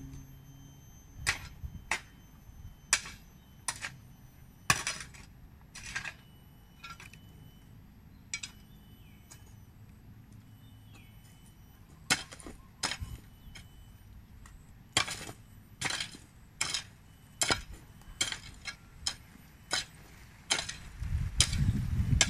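A long-handled garden hoe chopping into soil again and again, sharp strikes with a slight metallic ring, with a few seconds' lull midway. A low rumble comes up near the end.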